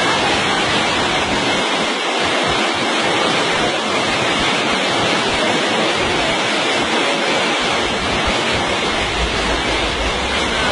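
Muddy floodwater from a flash flood rushing down a street after heavy rain: a loud, steady rush of water, with a low rumble joining near the end.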